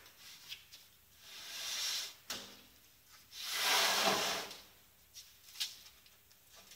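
A wooden-framed panel being slid and scraped across a large flat board: two swells of rubbing, about a second and a half in and a louder one about four seconds in, with a few light wooden knocks in between and after.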